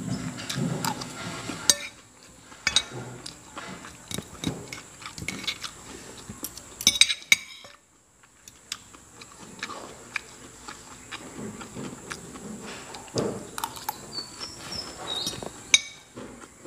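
Metal spoon and fork clinking and scraping on a ceramic plate as rice is scooped up, with sharp clinks scattered throughout; the loudest clinks come about seven seconds in.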